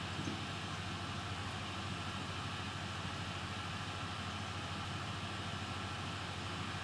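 Steady low hum and hiss with a faint high tone, unchanging throughout, and a couple of light clicks at the very start.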